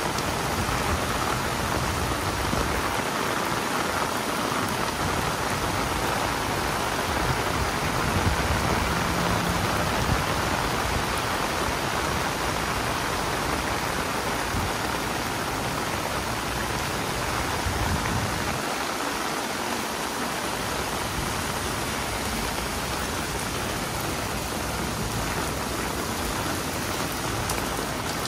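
Heavy rain falling steadily on an umbrella overhead, an even hiss of drops with no letup.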